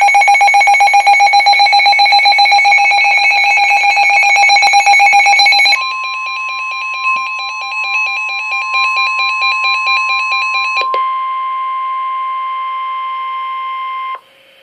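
Electronic weather-radio alert: rapid, loud beeping for about six seconds, then the steady single-pitch NOAA Weather Radio warning alarm tone comes in under quieter beeping. The beeping stops about eleven seconds in, and the steady tone cuts off shortly before the end. The alert signals a severe thunderstorm warning about to be read.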